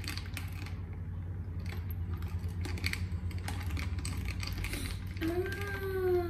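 A metal spoon stirring a glass of iced milk and whipped coffee foam, tapping and clinking against the glass in a quick, uneven series of light clicks. Near the end a short hummed vocal sound with a falling pitch.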